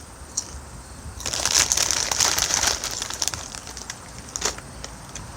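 Crinkling and crackling of a bag of Doritos chips being handled, lasting about two seconds, followed by a single sharp click about a second later.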